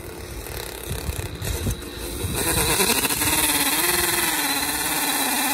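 DeWalt brushless cordless drill spinning a Roto Digger garden auger down into gravelly soil to bore a post hole. The motor gets louder about two seconds in and runs with a wavering pitch as the auger loads and frees up in the dirt.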